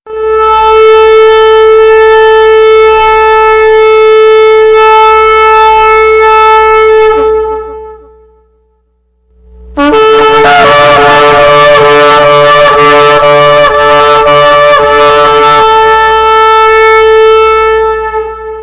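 Shofar blown in two long blasts: a steady held note of about seven seconds, then after a short pause a second blast that breaks into quick wavering pulses before settling back into a long held note.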